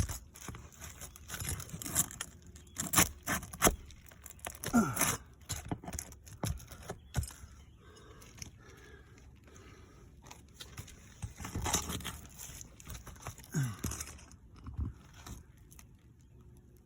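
Sealed asphalt shingles being pried up to reach the nails: scraping and tearing in irregular bursts, with sharp clicks and knocks. The tearing is the shingle ripping as its seal strip is broken.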